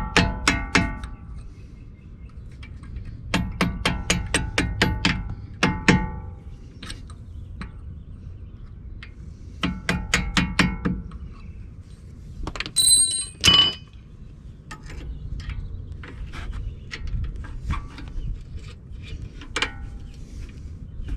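A hand ratchet clicking in quick runs of about two seconds, three times, as caliper hardware is worked on a brake job. A sharp metallic clink a little past the middle, with lighter clinks and taps of tools on metal after it.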